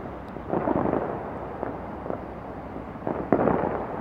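Fireworks going off: a rolling cluster of bangs about half a second in, a couple of single cracks, and another loud cluster near the end.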